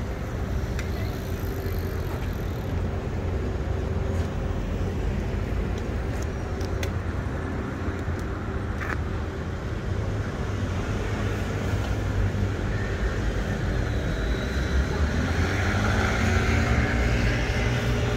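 City street traffic: cars running past in a steady low rumble, with one vehicle passing louder near the end.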